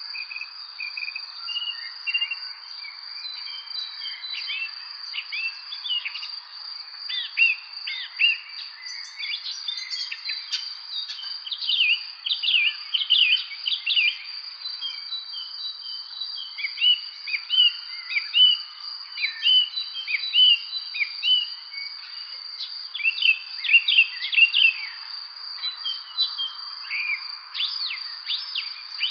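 Birds chirping in rapid clusters of short calls over a steady, high-pitched drone that never lets up.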